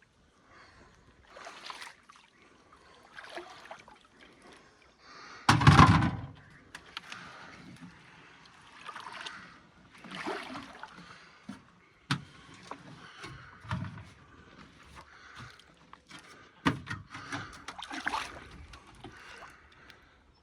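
Water sloshing and splashing in a repeated rhythm, one stroke about every one and a half to two seconds, with a louder splash about six seconds in and a few sharp knocks later on.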